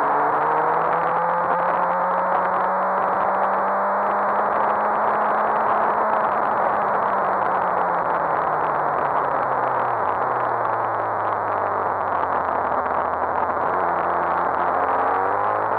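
Suzuki GSX-R1000 K7's inline-four engine at speed on track, under heavy wind rush on the microphone. The engine note climbs under throttle for the first few seconds, holds, then falls away as the bike slows, with a step down about ten seconds in, and starts climbing again near the end.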